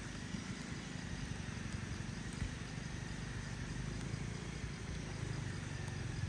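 Motorcycle engine running at low, steady revs with an even pulsing beat while the bike is ridden slowly over a muddy, rutted track.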